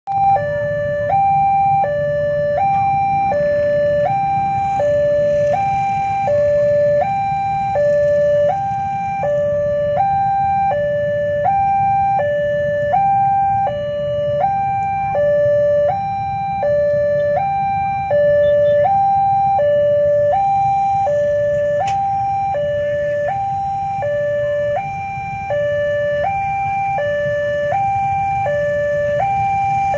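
Two-tone hi-lo siren, like an ambulance's, switching back and forth between a higher and a lower note, each held under a second, over a steady low rumble.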